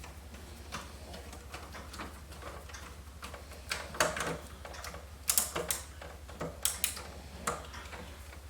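Irregular clicks and metallic clatter of a floppy drive and its screws being handled and fitted into a computer case's drive bay, with a few sharper knocks in the second half. A steady low hum runs underneath.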